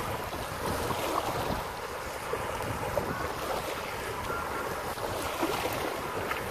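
Small lake waves washing onto a sandy beach, with wind buffeting the microphone in a steady low rumble.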